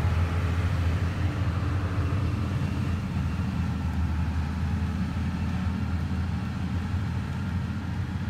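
Diesel engine of a motor grader running steadily, its low sound slowly fading as the machine moves away.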